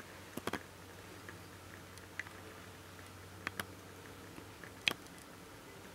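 Quiet room tone with a faint steady hum and a few soft, scattered clicks, the sharpest two about a second apart near the middle and one more near the end.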